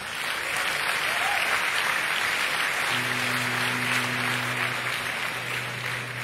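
Concert audience applauding. About halfway through, a low steady held note comes in under the clapping, as the next piece begins.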